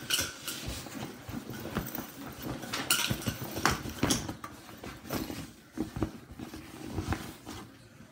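Handling noise from a teal fabric bag being moved and rummaged close to the microphone: irregular rustles with scattered clicks and clinks.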